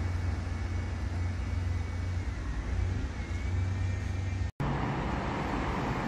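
Steady low rumble of road traffic and a receding tram, with a faint wavering whine about two to three seconds in. The sound cuts out for an instant about four and a half seconds in.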